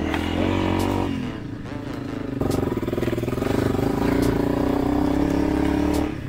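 Honda CRF300L Rally's single-cylinder four-stroke engine pulling under throttle, easing off about a second in, then back on the throttle from about two and a half seconds until it drops off again near the end.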